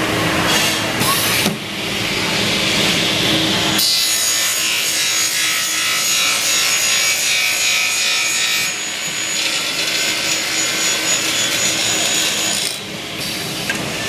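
Aluminium-profile cutting saw running and cutting through aluminium handle extrusions, a loud continuous metal-cutting noise. About four seconds in the sound turns brighter, with a high steady whine, and it eases briefly near the end.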